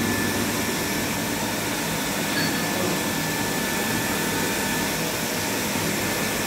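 A 500 LPH reverse osmosis water plant running: the steady hum and hiss of its pump motor, with a faint high whine held throughout.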